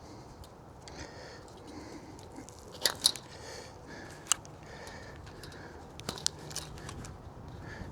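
Steel fence wire being worked and twisted by hand: scraping with sharp metallic clicks, a few louder snaps about three seconds in, around four seconds and near six seconds.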